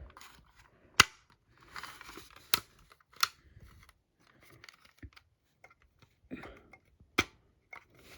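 A plastic smoke alarm being handled and fiddled with: a few sharp plastic clicks and knocks, the loudest about a second in, with soft rustling between them. No alarm sounds.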